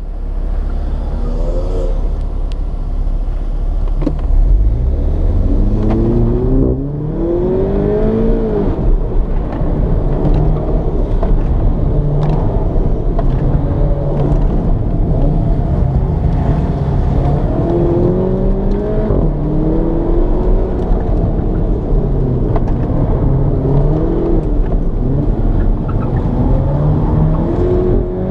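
2015 Volkswagen GTI's turbocharged 2.0-litre four-cylinder heard from inside the cabin, revving up and down under hard acceleration and lifts through an autocross course. Its pitch climbs steeply about four to eight seconds in, then rises and falls again and again.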